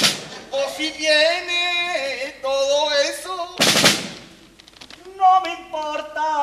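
Male voices singing drawn-out, wavering notes, cut into by short snare drum rolls, one at the start and a longer one just past halfway.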